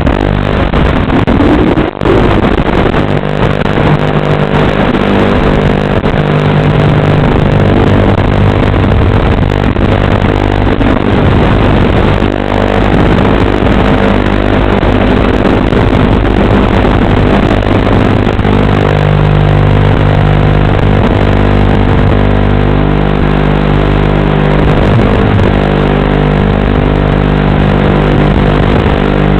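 Brushless motors and propellers of a 6-inch FPV quadcopter running loud, with a droning whine whose pitch steps up and down as the throttle changes, and a short dip in level about two seconds in.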